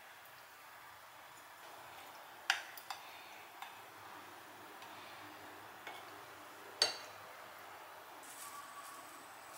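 A handful of light clinks and taps as a wooden spoon and chopsticks knock against a glass serving bowl and ceramic plates while kimchi and seasoned cucumber are served out; the sharpest clink comes about two-thirds of the way in.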